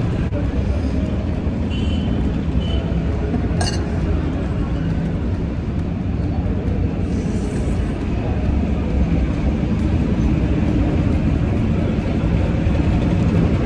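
Steady low background rumble, with one short sharp click about three and a half seconds in.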